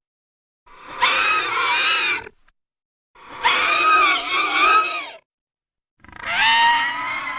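Animated Hydra monster's sound effects: three separate screeching cries, each about one and a half to two seconds long, with a wavering pitch.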